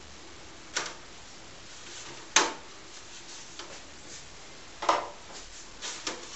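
Four sharp knocks and clunks at uneven intervals, the loudest a little over two seconds in: hard objects being handled and set down.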